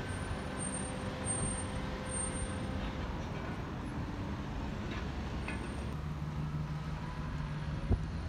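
Street traffic: motor vehicle engines running with a steady low hum, a second engine note joining about six seconds in, and a short knock near the end.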